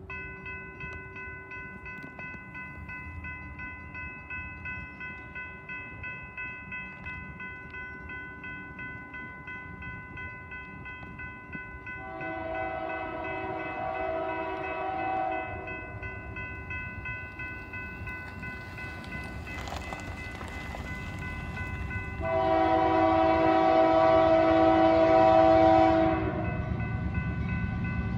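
Grade-crossing warning bell ringing steadily while an approaching freight locomotive sounds its air horn in two long blasts and starts a short one at the very end, the pattern blown for a road crossing. Low train rumble grows louder as the locomotive nears.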